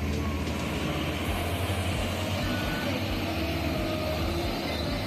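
A loaded Hino heavy truck's diesel engine running low and steady as the truck drives past at close range, amid other road traffic.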